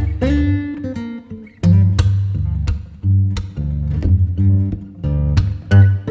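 Background music: an acoustic guitar playing plucked and strummed chords over a steady bass line.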